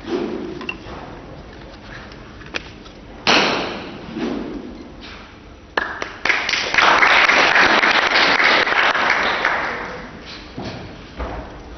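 Thuds of a wooden staff and feet striking a matted floor during a staff routine, with a sharp strike about three seconds in and another near six seconds. From about six seconds in, a loud rushing noise lasts around four seconds before fading.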